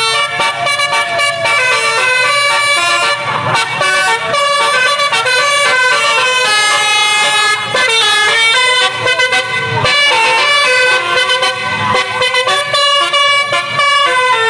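Bus telolet horn, a Basuri multi-trumpet air horn, playing a tune in short stepped notes with several pitches sounding together and brief breaks between phrases.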